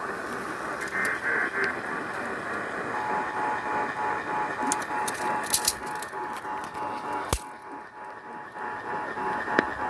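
Radio static and hiss, with the Emergency Alert System's two-tone attention signal coming through faintly and choppily from about three seconds in, as on weak radio reception. A few sharp clicks break through the static around the middle.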